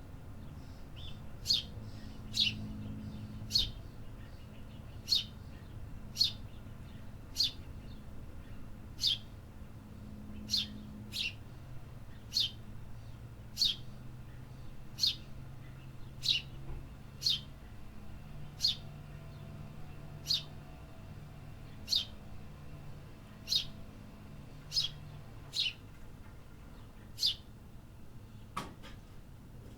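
A city bird chirping over and over, one short, sharp, high chirp about every second, over a low steady background hum.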